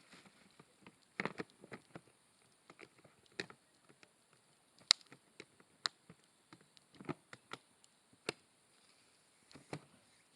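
Campfire crackling: irregular snaps and pops, several a second, with one sharp loud crack about halfway through.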